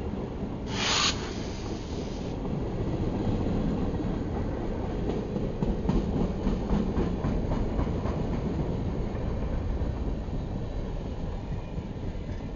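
Freight train cars rolling past: a steady low rumble of wheels on rail, with a brief loud hiss about a second in and a run of rhythmic clickety-clack from wheels over rail joints in the middle.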